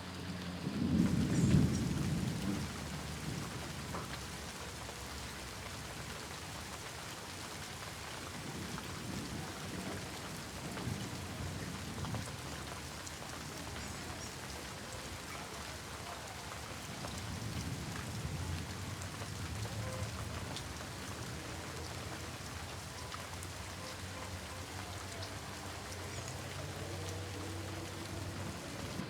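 Steady heavy rain falling, with thunder rumbling: the loudest roll comes about a second in, and weaker rumbles return twice later.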